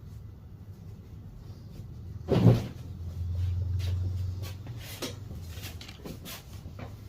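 Hand thumps and taps of a head and back massage: one heavy thump about two and a half seconds in, then a low rumble for a couple of seconds, with lighter taps and clicks scattered around it.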